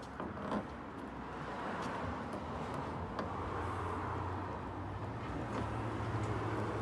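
A motor vehicle's engine running nearby, a low steady hum that grows louder from about halfway through. A few light clicks from the dent tool work come early on.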